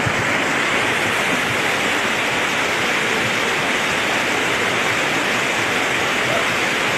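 Brown floodwater from a rain-swollen mountain stream rushing down a village road in a steady, loud, unbroken torrent.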